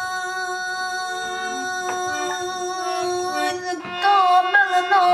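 Harmonium sounding a steady held chord, its reeds droning. About four seconds in, a voice starts singing over it with a wavering, sliding pitch.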